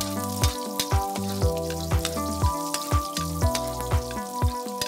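Background electronic music with a steady kick-drum beat, about two beats a second, and held synth notes. Under it, the sizzle of chopped garlic frying in oil in a wok.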